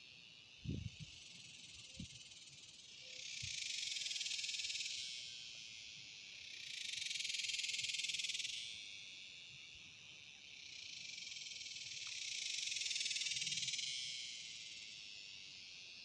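Dog-day cicadas buzzing: three long buzzes, each a few seconds long, that swell up and fade away, over a steady high insect drone. A few soft knocks in the first couple of seconds.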